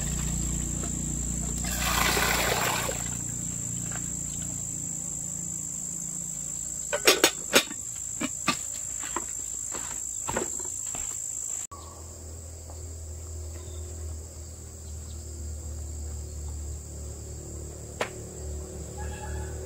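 A steady high-pitched insect drone, with a brief rush of noise about two seconds in and a handful of sharp knocks around seven to eight seconds in.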